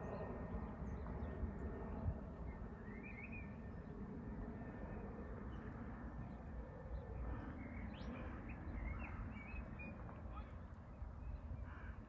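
Small birds chirping in short calls over a steady low rumble; the chirps start about three seconds in and grow more frequent near the end.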